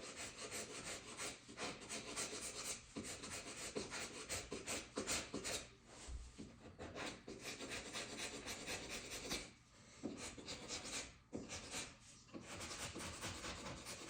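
Hand scraper rasping over a hardwood floor in quick, short strokes, feathering out a stain blemish, with a few short pauses.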